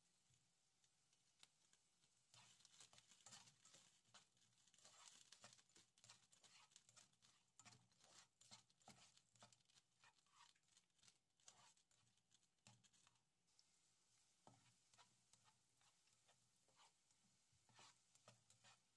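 Very faint crackling and clicking of chopped onion and whole spices being stirred in oil in a nonstick pan. The clicks come thick and fast for the first two-thirds, then thin out.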